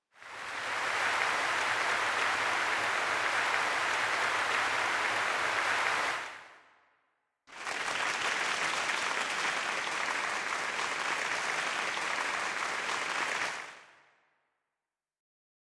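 Applause sound effect from a Yamaha PSR SX900 arranger keyboard's sound-effects voices, played as two held notes of about six seconds each. Each note fades out on release.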